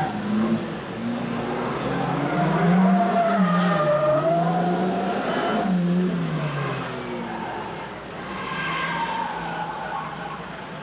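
A hatchback gymkhana car driven hard around cones. Its engine revs up and down several times as the driver accelerates and brakes between turns, and the tyres squeal as the car slides through the turns, most clearly in the middle and near the end.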